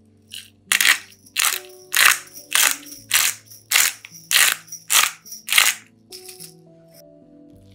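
Hand-twisted black pepper mill grinding peppercorns in nine short crunchy rasps, a little under two a second, then stopping.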